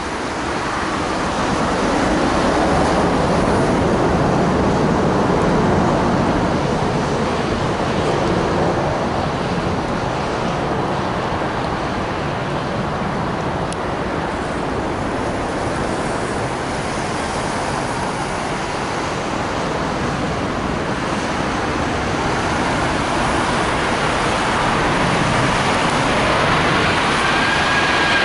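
British Airways Airbus A380, with four Rolls-Royce Trent 900 engines, on final approach: a steady, broad jet roar. Near the end a whine rising in pitch joins it as the aircraft draws close.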